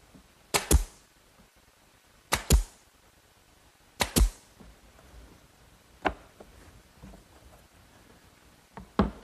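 A brad nailer firing 1-inch brads through a wooden corner joint: three sharp shots about a second and a half apart, each a quick double crack. A lighter single click follows about six seconds in, and a few small taps come near the end.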